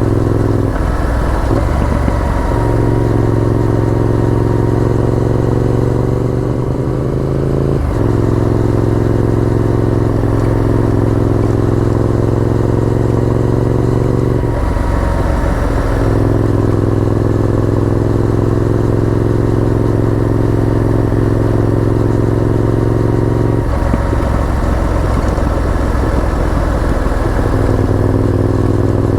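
Honda VTR1000F's 90-degree V-twin engine running steadily on the move. Its note is broken a few times by short rough, unsteady stretches before settling again.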